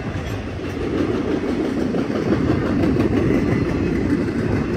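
Norfolk Southern freight train's cars rolling past, a steady rumble of steel wheels on rail with faint repeated clicks over the rail joints.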